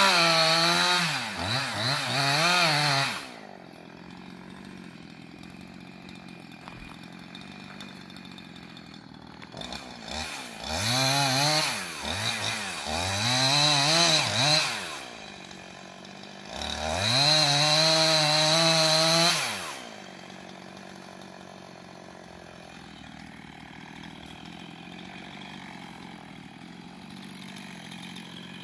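Two-stroke gas chainsaw revved hard three times, its pitch rising and falling, and idling in between and on to the end.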